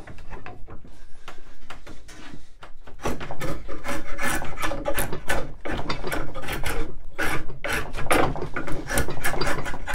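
Drawknife pulled in repeated strokes along a square length of wood clamped in a shave horse, scraping and shaving chips off the corners to work it toward an octagon. The strokes are lighter and sparser for the first few seconds, then come quick and steady.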